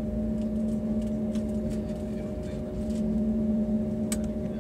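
Cabin noise of an Airbus A320-family jet taxiing, heard from inside the cabin: a steady low rumble with an even hum underneath. A single sharp click about four seconds in.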